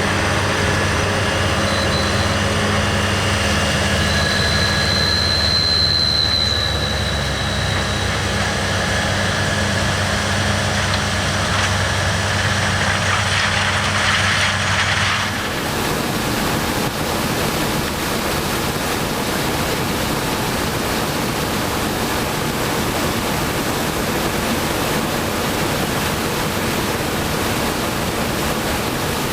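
Heavy farm harvesting machinery running: a steady engine drone with a high whine that rises and falls. About halfway through it changes abruptly to a steady, even rushing noise across all pitches.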